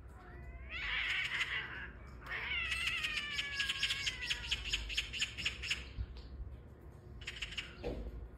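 A cat yowling in long, drawn-out calls: a short one about a second in, then a longer, rough one that slowly falls in pitch from about two to five seconds in, and a brief cry near the end.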